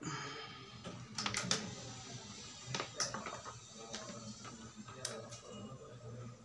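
A few sharp clicks and taps, scattered irregularly, over a low steady hum.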